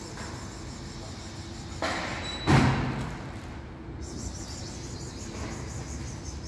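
A single loud thud about two and a half seconds in, dying away over most of a second, over a steady low background rumble.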